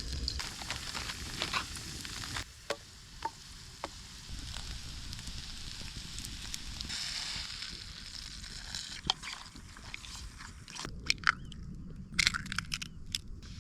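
Food sizzling over a campfire, with scattered crackling pops and a run of sharp clicks near the end.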